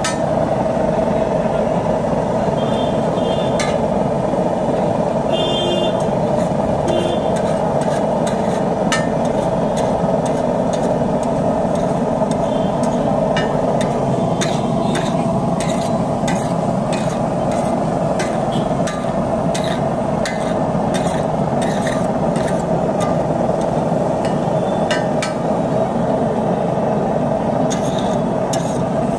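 Flat metal spatula scraping and clacking on a large iron tawa as egg bhurji is stirred, chopped and piled, in irregular quick strokes. A steady loud roar runs underneath.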